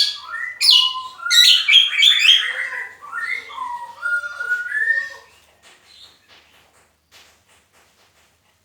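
A songbird calling loudly in a rapid jumble of harsh chatter and sliding whistled notes for about five seconds, then only faint clicks.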